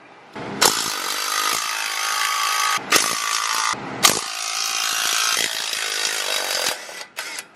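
Cordless electric ratchet running in three runs of a few seconds each, with short gaps between and a couple of brief blips near the end, spinning out the bolts of a worn clutch pressure plate.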